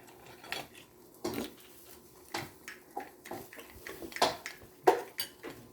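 Scattered light clinks and knocks of tableware at a meal, about seven separate taps a second or so apart.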